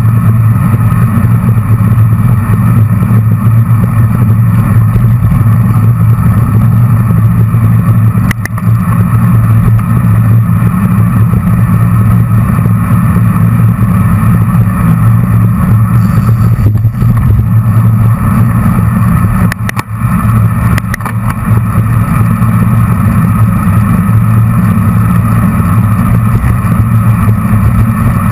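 Wind rushing over a bike-mounted camera's microphone at racing speed, a loud steady rumble, with a couple of brief clicks about eight seconds in and around twenty seconds.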